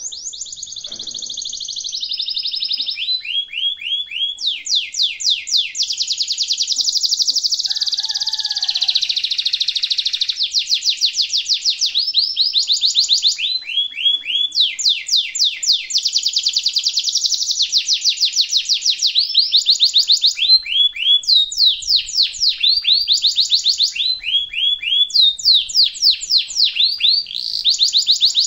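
Domestic canary singing a long, unbroken song of rolling trills: fast runs of repeated high falling notes, alternating with denser buzzy passages and changing phrase every second or two. The song starts abruptly.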